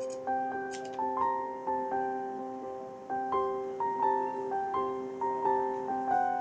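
Gentle solo piano background music: notes struck about twice a second, each ringing and fading over held lower notes. Two faint, short snips of fabric scissors near the start.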